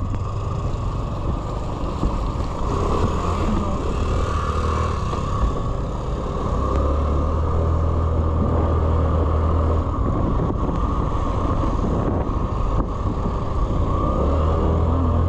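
An engine running steadily, with a continuous low hum.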